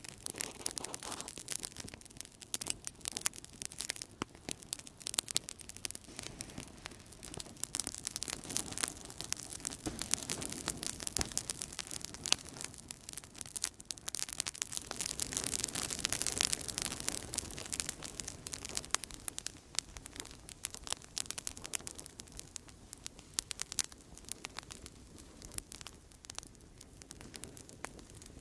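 Outdoor campfire burning, a dense run of irregular crackles and pops over a soft hiss of flames, swelling louder and hissier for a couple of seconds about halfway through.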